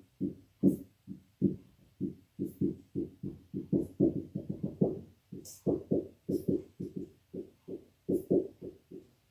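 Dry-erase marker writing on a whiteboard: a quick, uneven run of short stroke sounds, about four a second, with a few faint high clicks from the tip.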